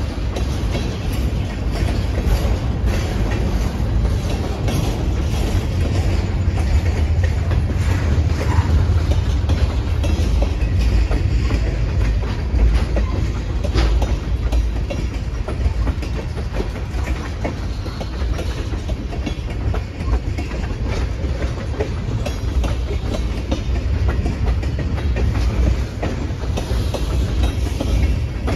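Freight cars, tank cars and flatcars, rolling steadily past on the track: a continuous low rumble of wheels on rail with frequent clicks as wheels cross the rail joints, and one sharper knock about halfway through.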